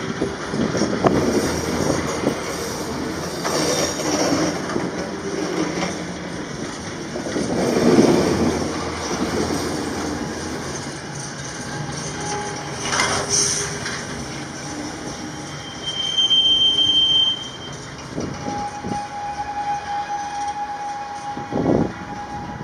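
Container freight train wagons rolling slowly past, a continuous rumble and clatter of wheels and couplings that swells and eases, with a few knocks. A short high squeal about two-thirds of the way through, then a steadier lower squeal near the end.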